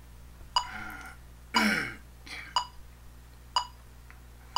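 Metronome ticking steadily at about one beat a second, each tick a short bright click. About a second in, a man clears his throat, with a falling sound near the two-second mark.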